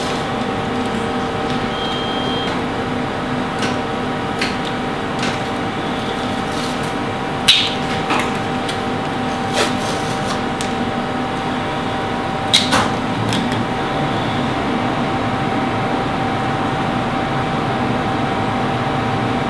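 Steady mechanical hum with several held tones from the CT scanner and room equipment, with a few light clicks and taps as hands work on the thermoplastic mask and a marker pen.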